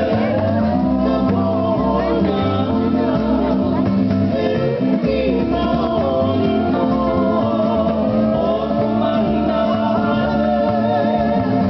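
Hula dance music: a song sung over plucked guitar with a steady bass line.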